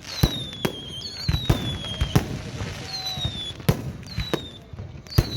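Fireworks going off in a rapid series of sharp bangs, several each second, with high whistles that slide down in pitch from whistling shells.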